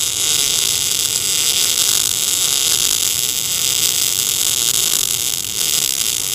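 MIG welding arc from a Tenya NBC-288 welder laying a bead: a loud, steady hissing crackle.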